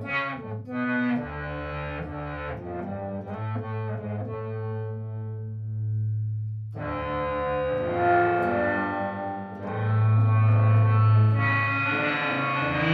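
Electric guitar played through the Time Shadows effects pedal, giving a heavily processed, distorted tone. Notes ring on and fade out about five seconds in. A new chord then enters about seven seconds in and swells louder.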